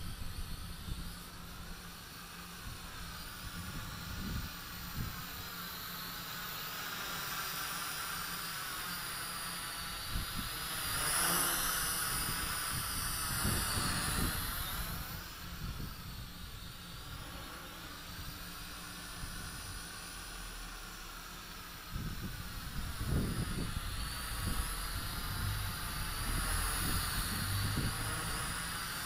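JJRC H8D quadcopter's four propellers whirring in flight, the whine wavering up and down in pitch as the motors adjust, loudest about a third of the way in as it comes close overhead. Low wind buffeting on the microphone, strongest near the end.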